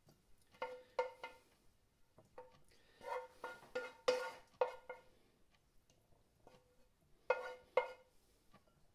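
Wooden spoon knocking and scraping in a non-stick frying pan while serving out the food, about a dozen taps in three short clusters. Each knock sets the pan ringing briefly at the same pitch.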